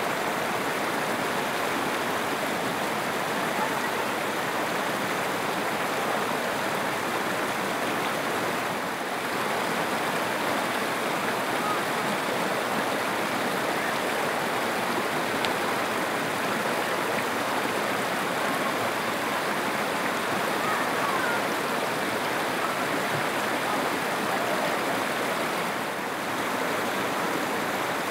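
Steady rush of stream water pouring over a small rocky waterfall into a pool.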